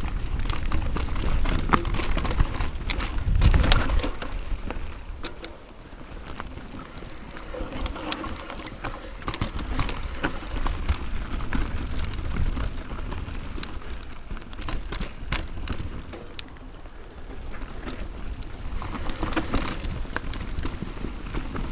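Mountain bike ridden down a dirt forest trail: tyres rolling over dirt and roots with many quick rattles and knocks from the bike over the bumps, and wind rumbling on the handlebar camera's microphone. It eases off briefly twice.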